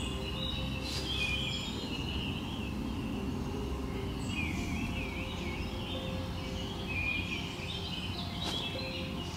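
Several songbirds singing and chirping at once, short warbling and trilling phrases overlapping throughout, over a steady low rumble.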